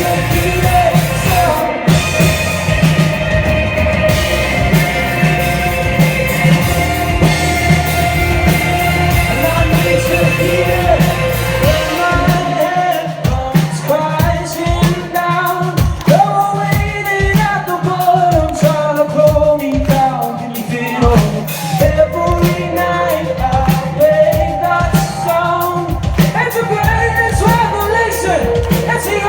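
Rock band playing live with a male lead singer. About 13 seconds in the bass and full drums drop out, leaving the voice over separate drum hits, until the band fills back in near the end.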